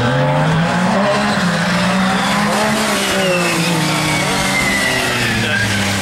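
MG Metro 6R4 rally car's V6 engine being driven hard: revs climb in the first second, hold, then ease off as it comes into a corner. A high whine falls slowly in pitch through the second half.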